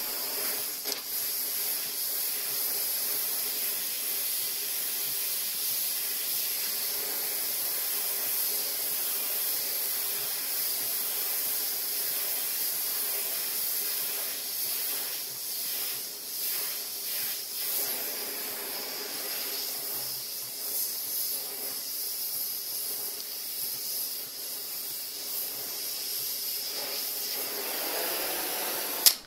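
Oxy-fuel gas torch flame hissing steadily as it heats a seized, broken bolt in the cast iron block of a Ford flathead V8 to free it. The hiss cuts off with a sharp pop near the end as the torch is shut off.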